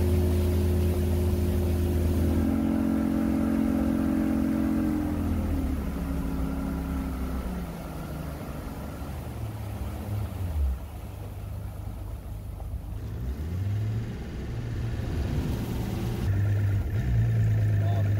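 Outboard motor of a small boat running under way, a steady engine hum whose pitch dips and rises again a couple of times partway through.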